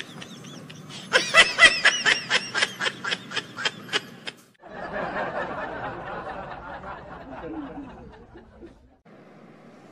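Cartoon character laughing in a run of short, even pulses, about four a second, for about three seconds. A quieter, noisy sound with a few sliding tones follows for about four seconds.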